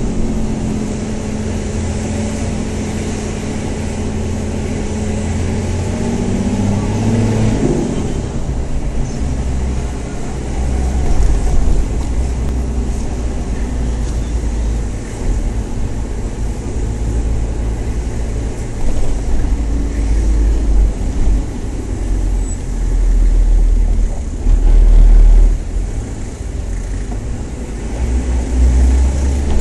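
Nissan Patrol engine running at low speed, heard from inside the cabin, with road rumble. The engine note rises about eight seconds in, and the low rumble swells several times in the second half.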